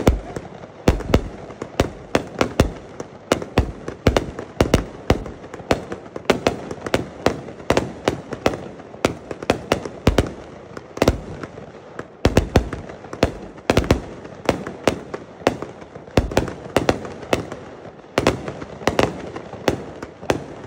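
Consumer firework cake firing a rapid string of loud bangs, several a second and unevenly spaced, over a steady haze of noise.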